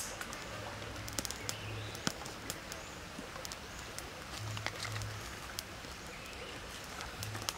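Small twig fire crackling under a clay pot, with scattered light clicks of dry sticks being pushed in, and birds chirping faintly in the background.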